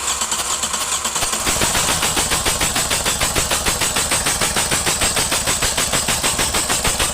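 Starter motor cranking a Toyota Etios diesel engine in a fast, even rhythm of compression pulses with a high whine. The engine does not catch: the no-start fault being diagnosed.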